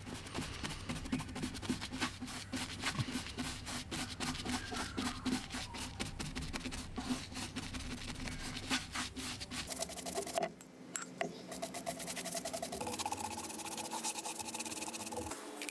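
Wood lathe running with a tool working the spinning pine, giving a dense run of rapid scraping ticks over a steady motor hum. About ten and a half seconds in the sound breaks off briefly, and when it resumes the hum sits higher.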